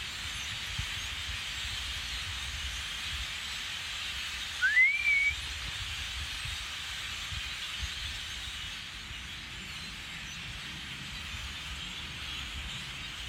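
A bird gives a single short whistled call about five seconds in, rising in pitch and then levelling off. It sounds over a steady background hiss and low rumble.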